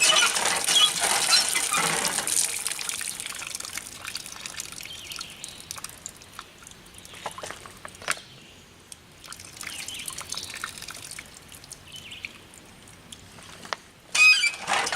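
Water pouring from a pump spout, running strongly at first and thinning to a quieter trickle after a few seconds, with a few faint clicks.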